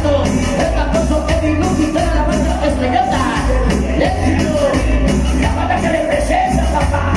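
Loud recorded dance music played over a party sound system: a singing voice over a steady, repeating bass beat.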